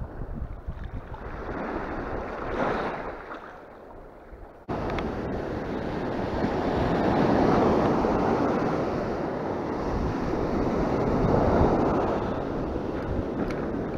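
Sea waves washing onto a sandy beach, with wind buffeting the microphone. After an abrupt cut about four and a half seconds in, the surf gets louder and swells twice as waves break and wash up the sand.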